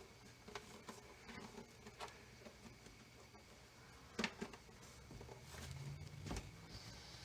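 Faint, scattered clicks and light taps of small parts being handled, with one sharper click about four seconds in and a brief low hum around six seconds.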